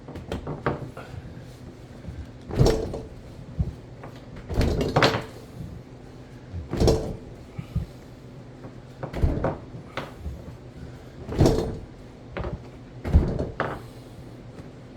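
A ratchet strap being cranked stroke by stroke to drag a stuck refrigerator out of a tight space. It makes about six short bursts of clicking and scraping, roughly two seconds apart.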